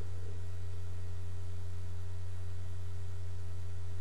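Steady low electrical hum with a couple of faint higher tones above it, the noise floor of a poor-quality microphone.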